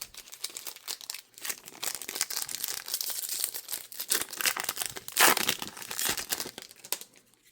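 Plastic trading-card pack wrapper being torn open and crumpled by hand: a dense, continuous crinkling and crackling, loudest about five seconds in.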